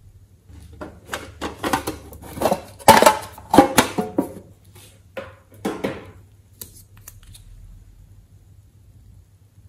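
Hands handling a small painted metal tin with latches and a stick of clay: a run of clicks, taps and metallic clinks, loudest about three to four seconds in and dying away by about seven seconds.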